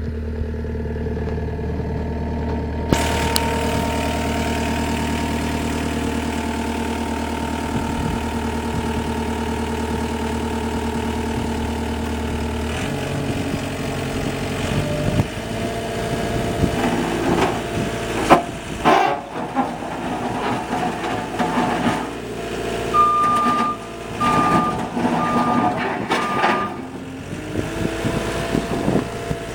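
Takeuchi TL240 skid steer's diesel engine running steadily; about 13 seconds in its note changes, and irregular clanks and knocks of the working machine follow. Near the end its reversing alarm beeps four times.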